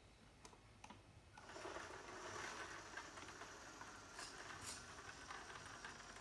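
Small electric drive motor and gearbox of an RC model tractor whirring steadily as it drives across a carpet, starting about a second in after a few faint clicks.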